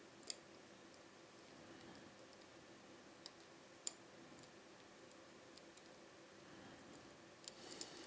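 Faint, sharp metallic clicks of a hook pick working the pins of a Dom IX-6 KG euro cylinder lock held under tension: one just after the start, a few around three to four seconds in, and two close together near the end.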